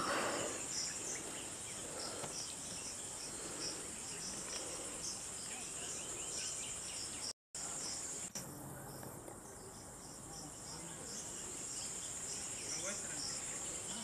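Steady high-pitched insect chirring in a mango orchard, with a brief dropout about halfway through.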